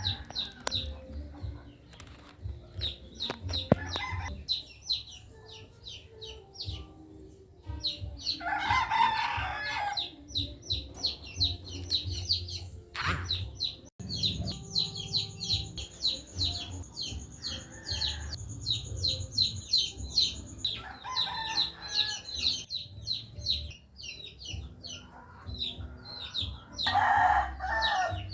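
A rooster crowing three times, over small birds chirping in quick repeated high notes, several a second.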